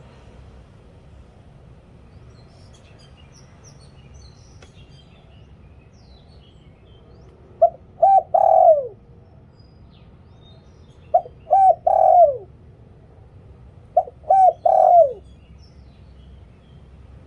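Spotted dove cooing: three phrases about three seconds apart, each two short notes followed by a longer falling coo. Faint high chirps of small birds in the background before the first phrase.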